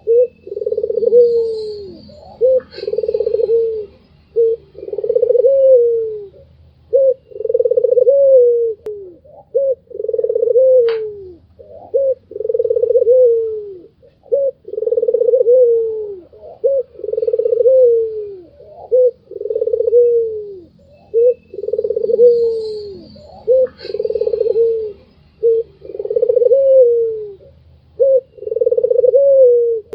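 A white Barbary dove (puter) cooing over and over: about one long coo every second and a half, each dropping in pitch at its end, with short clipped notes between. Faint high chirps of another small bird come in twice.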